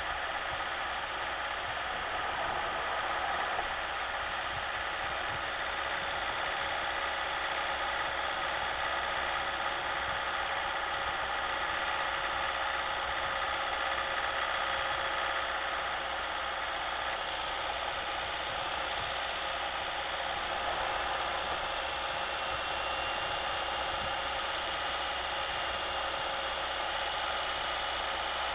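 Steady cabin noise of a Citroën Nemo 1.3 Multijet diesel van cruising in fifth gear at about 84 km/h on a wet road: an even hiss of tyres and road, with the engine running underneath. A faint high tone, rising slightly, joins about three quarters of the way through.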